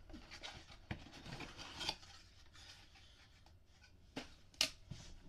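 Packaging being handled: rustling and rubbing of paper and cardboard, with a few sharp clicks and knocks, two of them close together near the end.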